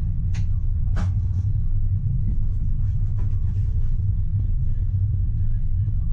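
Tram running along the track, heard from the driver's cab: a steady low rumble, with a couple of short sharp sounds in the first second or so.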